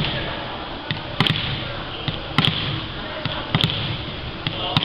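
A volleyball bounced on a hardwood sports-hall floor by a player before serving: a sharp thud about every second and a bit, each echoing in the big hall.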